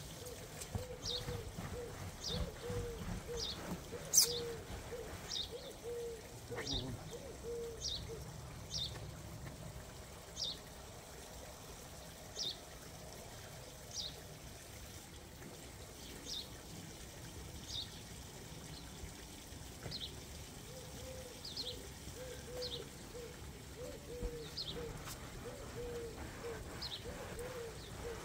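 Garden birds chirping, short high calls about once a second throughout, with a lower repeated call in runs at the start and near the end. Under them a brush scrubs the inside of the inflatable hot tub at the start and again near the end, water trickles from a hose into the tub, and there is one sharp knock about four seconds in.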